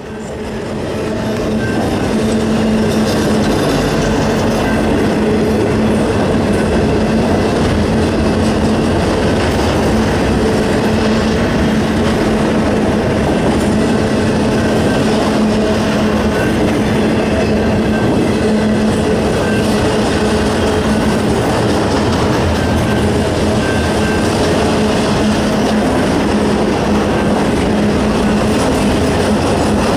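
Train rolling past at close range: a loud steady rumble of wheels on the rails with a few steady tones in it, building over the first couple of seconds and then holding level.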